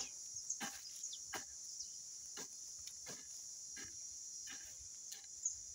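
A garden hoe chopping and scraping into dry soil and weeds, a short stroke roughly every 0.7 seconds, over a steady high drone of insects.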